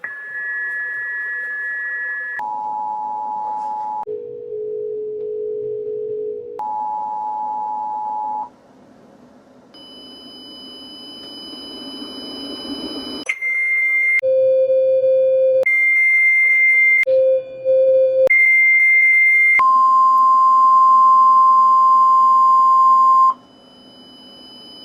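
Emergency Alert System two-tone attention signal, edited into steps: the two-note chord sounds high, then at its normal pitch, then lower, then normal again, each step about two seconds long. After a brief gap and a rising hiss come five alternating high and low beeps. Then a steady single-note warning tone of about 1 kHz, typical of the NOAA Weather Radio alert tone, runs for a few seconds and cuts off.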